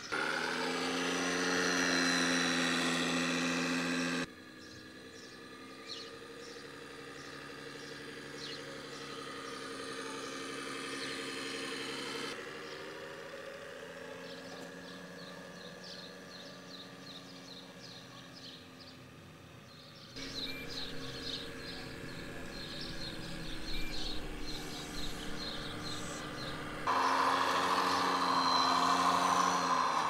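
Scale RC truck's simulated diesel engine sound from its onboard sound module, running steadily with the pitch shifting between shots.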